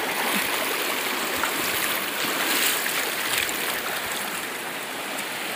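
Shallow, fast-flowing river rushing over stones, a steady noise of running water.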